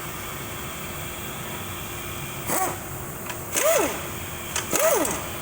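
A 13mm bolt being loosened with a socket wrench on a transmission case: three short squeaks, each rising then falling in pitch, about a second apart and starting about halfway through. A steady fan hum runs underneath.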